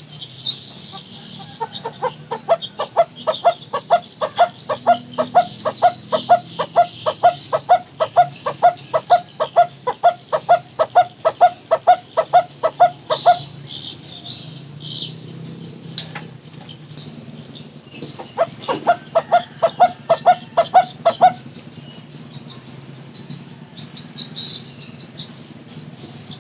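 Barbet (burung takur) giving its 'teguk teguk' call: a long series of evenly repeated hollow notes, about two to three a second, then a second shorter series after a pause of a few seconds. High insect or small-bird chirping runs behind it.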